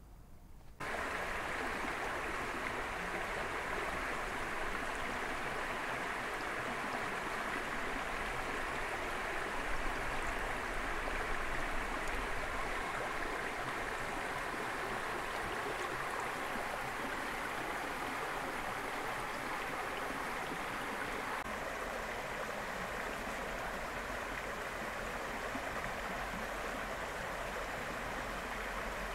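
Shallow stream rushing over a low ledge of rocks in small riffles, a steady sound of moving water that cuts in abruptly about a second in.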